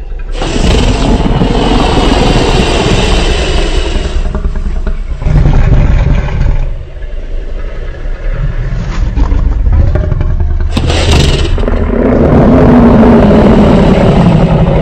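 Godzilla monster sound effects: a run of loud, harsh, grinding roars one after another, with a deep rumble underneath, the last and longest near the end wavering in pitch.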